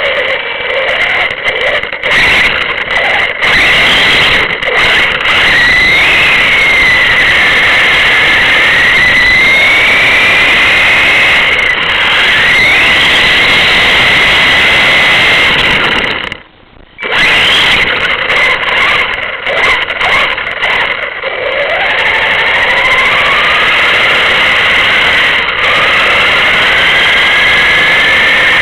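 A vehicle's engine and drivetrain running at road speed, heard loud and distorted from inside the cab, with a whine that rises and falls in pitch as the vehicle speeds up and slows. The sound cuts out briefly a little past halfway.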